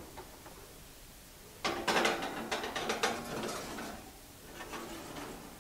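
Wire oven rack rattling and clicking as a glass baking dish is set on it and pushed into the oven. A run of clicks and rattles starts a little under two seconds in, lasts about two seconds, then trails off into a few lighter clicks.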